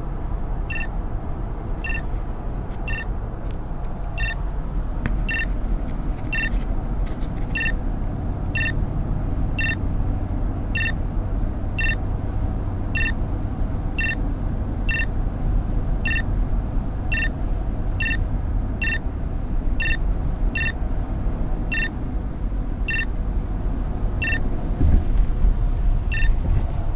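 Road and engine rumble inside a moving car, with a short electronic beep repeating about once a second.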